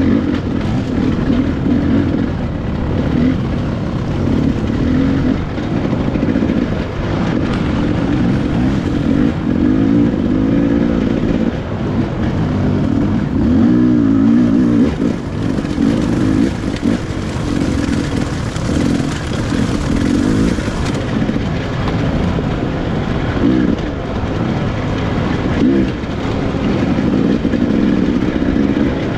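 Off-road dirt bike engine running at low speed over rocky ground, its note rising and falling over and over with the throttle.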